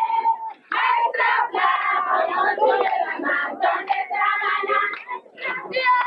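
A crowd of women singing and calling out together in celebration, many voices overlapping.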